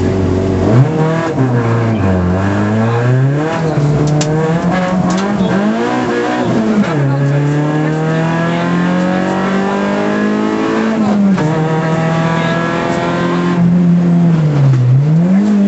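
Rally car engine heard from inside the cockpit, launching from a standing start and accelerating hard. Its pitch climbs and drops at each of several upshifts in the first seven seconds, then holds high revs with brief lifts of the throttle.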